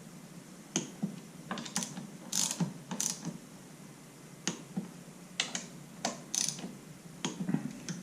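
Hand ratchet wrench clicking in short, irregular bursts as a fastener on the motorcycle's front end is run down and tightened.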